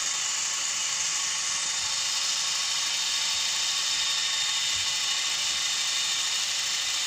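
Toy 4-channel RC helicopter's small electric motors and spinning rotor blades giving a steady high-pitched whir.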